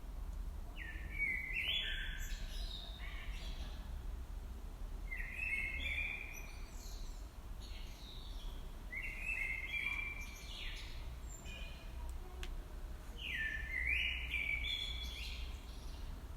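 A songbird singing short chirping phrases, four in all, about one every four seconds, over a low steady rumble.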